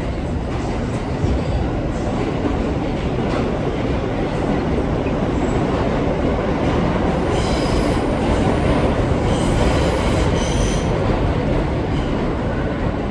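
New York City subway train on the 6 line running, a steady loud rumble of wheels on track. There are two short spells of high-pitched wheel squeal past the middle.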